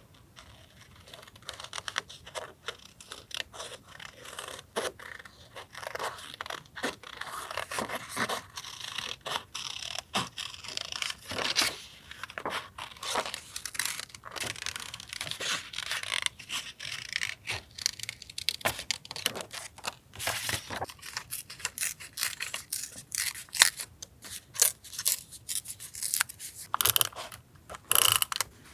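Paper and sticker sheets being handled: close rustling, crinkling and tearing with stickers peeled and pressed down, and many small taps and scrapes; the sharpest, loudest ones come in the last few seconds.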